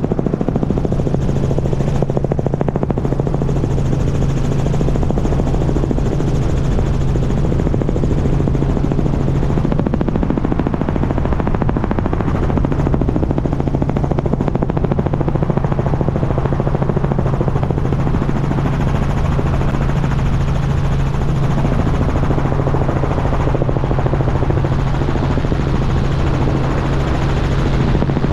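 Helicopter in flight, picked up by a camera mounted outside the cabin: a loud, steady rotor and engine drone with a low hum that drops out briefly about ten seconds in.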